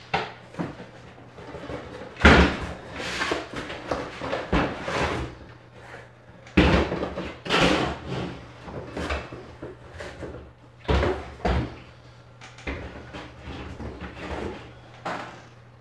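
A cardboard box being unpacked: irregular thumps and knocks as plastic jugs and spray bottles are set down on a tabletop, mixed with cardboard scraping and rustling.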